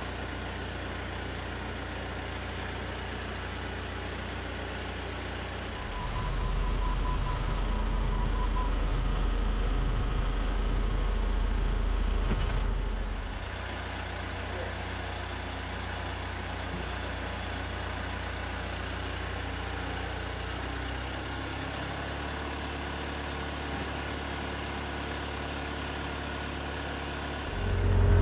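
An engine running steadily at low speed. About six seconds in it runs louder for roughly seven seconds, then settles back.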